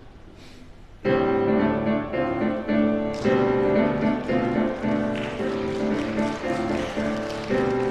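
Music starts suddenly about a second in, after a quiet moment: piano accompaniment for a choir piece, playing rhythmic chords.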